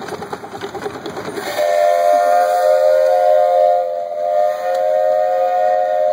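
Miniature steam locomotive chugging past in a fast, even rhythm. About a second and a half in, its chime steam whistle starts one long, steady blast of several tones at once, the loudest sound here.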